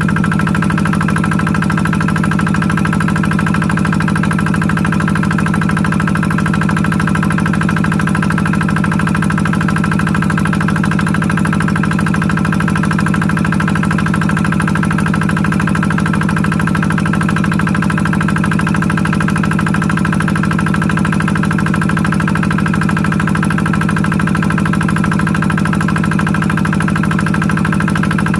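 Engine-driven water pump running steadily at constant speed, pumping water into the pond.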